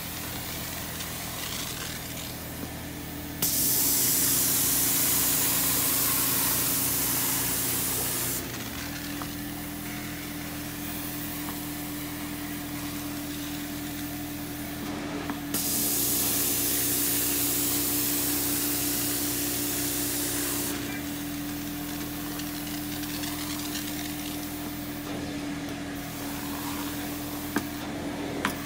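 Janilink portable carpet cleaning machine running with a steady motor hum and tone, while the floor wand is worked over carpet. Twice, a loud hiss of spray and suction at the wand starts abruptly, runs for about five seconds and cuts off.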